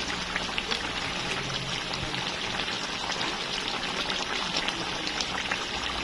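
Coconut-milk stew of milkfish simmering in a pan, the thick sauce bubbling with a steady crackle of tiny pops.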